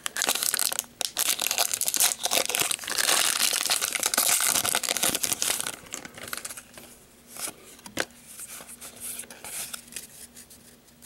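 Foil wrapper of a Pokémon trading card booster pack crinkled and torn open by hand. About six seconds in it gives way to quieter rustling and light clicks as the cards are handled, with one sharper click a couple of seconds later.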